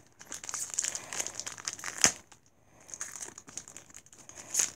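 Foil wrapper of a Pokémon Sun & Moon booster pack crinkling and crackling as fingers work it open at the crimped top, with a sharper crackle about two seconds in and another near the end.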